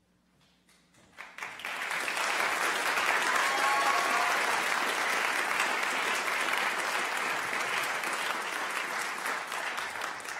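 Audience applauding, swelling quickly about a second in and holding steady.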